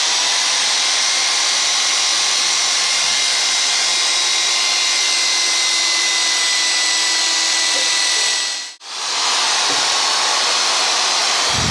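Handheld electric drill running steadily at full speed, boring a hole through a flat metal strip. It cuts out for a moment about nine seconds in, then starts again.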